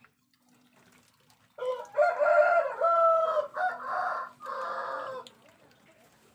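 A rooster crowing once: one long call of several joined parts, lasting about three and a half seconds and starting about a second and a half in.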